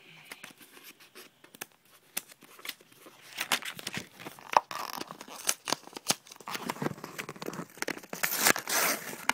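Close-up handling of a manga volume and its packaging: crinkling, rustling and tearing sounds with scattered clicks, sparse at first and busier and louder from about three and a half seconds in.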